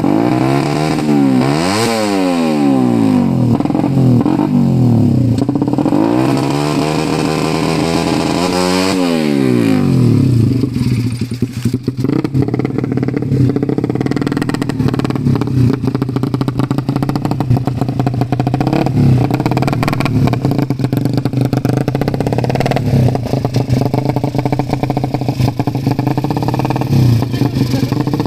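Suzuki Satria FU 150 single-cylinder four-stroke engine with a ported cylinder head, revved up and down twice, then settling to a steady idle from about ten seconds in.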